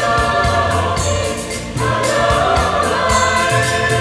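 Mixed choir of men and women singing long held chords over an instrumental accompaniment; the chord changes about two seconds in.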